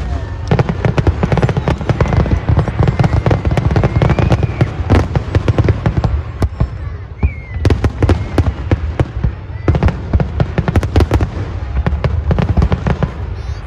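Fireworks going off in a dense barrage: many rapid sharp cracks and pops over a deep rumble of booms.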